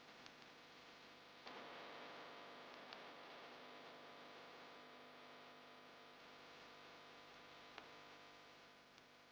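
Near silence: a faint steady hum and hiss, with a few faint clicks.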